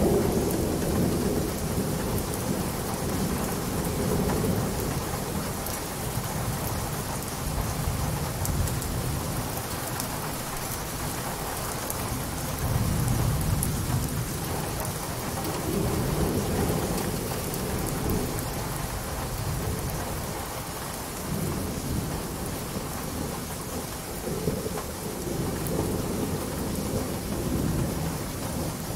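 Steady rain falling, with low rolls of thunder swelling up and fading several times.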